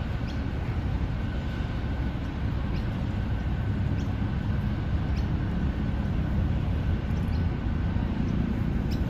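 Steady low rumble of city traffic, with faint short bird chirps now and then.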